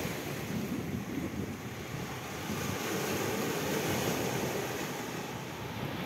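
Small waves washing in over a rocky, pebbly shore, a steady surf with wind on the microphone.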